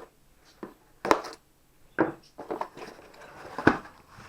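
Unboxing handling noise: a series of sharp clacks and knocks, with light scraping, as packaging and parts are handled and cut open. The loudest clacks come about a second in and near the end.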